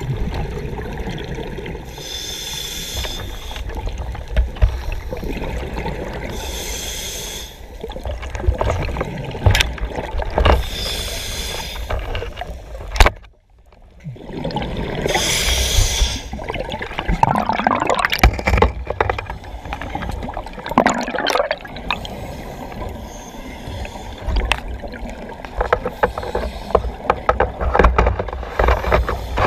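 Water sloshing and gurgling around the microphone, with a steady low rumble and bursts of hiss about every four seconds. The sound drops out briefly about halfway through.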